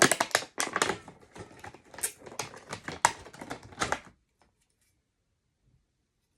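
Stiff plastic blister packaging being handled and worked open: a quick, irregular run of crackling clicks and rustles that stops abruptly about four seconds in.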